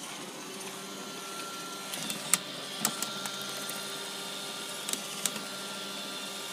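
Roomba robot vacuum running with a steady motor whir, with several sharp knocks over it, the loudest about two seconds in.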